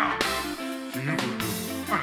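Live Congolese rumba band playing: electric guitar over keyboard and a drum kit, with a steady beat.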